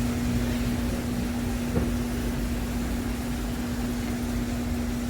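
Steady machine hum with one constant low tone, over a rumbling background noise.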